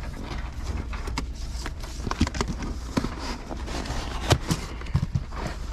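Blister-packed Hot Wheels cars being handled and sorted: irregular plastic and cardboard clicks and knocks, a couple of them louder, over a steady low rumble.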